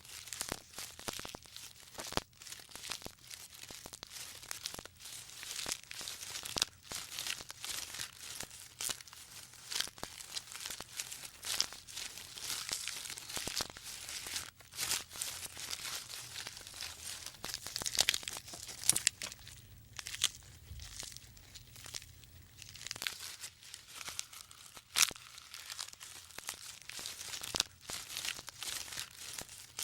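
Dense, irregular crackling and tearing noise made of many sharp clicks, with a faint low hum underneath.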